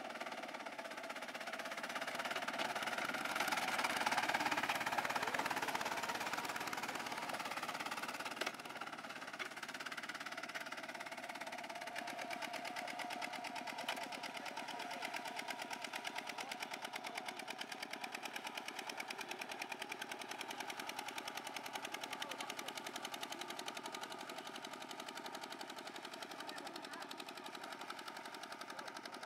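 Single-cylinder diesel engine of a two-wheel walking tractor running steadily with a rapid, even exhaust knock as it pulls a harrow through flooded paddy mud. It is loudest a few seconds in, with water churning, then goes on a little quieter.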